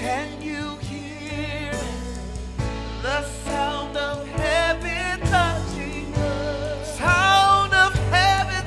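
Gospel worship song: a singer holding wavering, vibrato notes over a band with a steady bass line, the voice rising to its loudest near the end.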